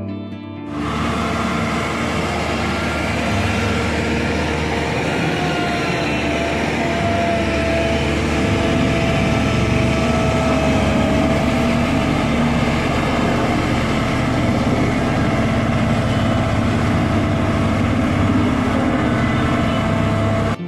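Single-drum soil compactor roller's diesel engine running steadily at close range, starting abruptly about a second in, with a steady low hum under the machine noise and a faint wavering whine midway.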